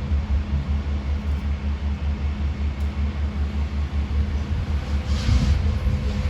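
A heavy engine running steadily with a low, pulsing throb, and a brief hiss about five seconds in.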